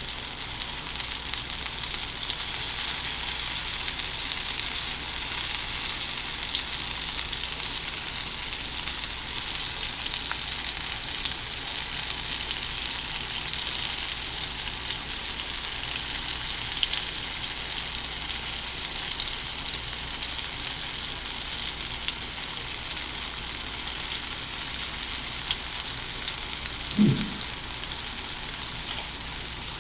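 Food frying in hot oil on the stove: a steady sizzle with fine crackling, and one short low thud about 27 seconds in.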